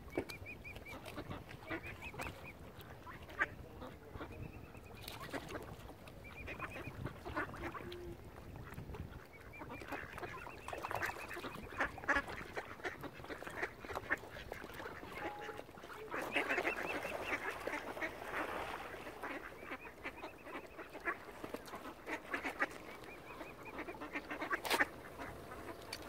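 Mallard ducks quacking amid other waterbird calls: short calls repeat throughout, with a busier, louder stretch of calling a little past the middle.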